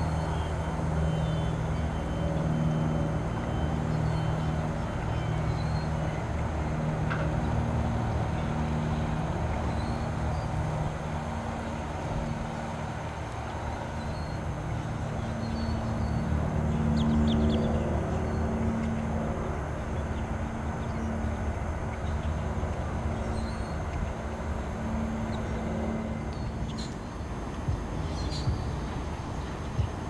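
An engine running steadily, its hum swelling briefly about halfway through, with a few short bird chirps over it.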